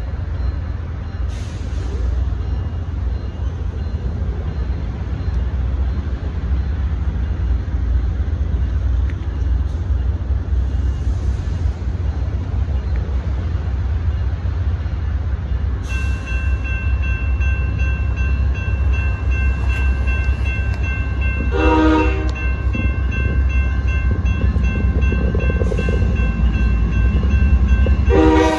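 Railroad crossing bell starts ringing about halfway through, over a steady low rumble. An approaching Amtrak train then sounds its chord horn, one short blast a little after that and another starting near the end.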